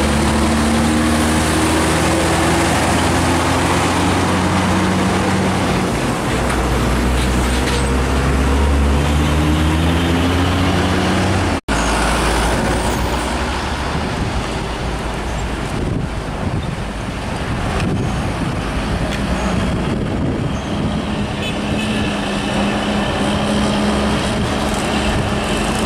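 Heavy diesel truck engines pulling away. The first truck's engine climbs in pitch, falls back about six seconds in and climbs again, as through a gear change. After a sudden break near the middle comes steadier heavy-truck and traffic noise as a loaded tractor-trailer passes.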